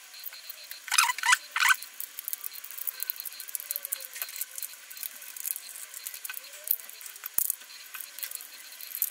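Small plastic clockwork toy car being handled and refitted: three short, loud rattles about a second in, then scattered light clicks of plastic parts and gears.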